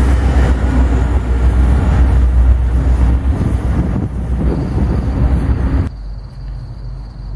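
Union Pacific diesel locomotive at the rear of a freight train passing close by, its engine rumbling low under the noise of wheels on rail, fading as the train moves away. About six seconds in the sound drops suddenly to a much quieter background with a faint steady high whine.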